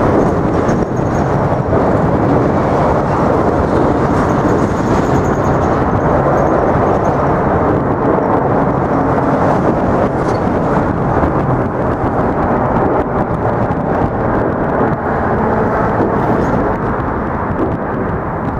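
Subway train crossing the Manhattan Bridge: a loud, steady rumble that does not let up.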